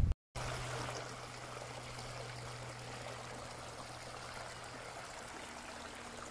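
River water running steadily over a small wooden weir or sluice on the Little Stour, an even rushing trickle, with a faint steady low hum underneath.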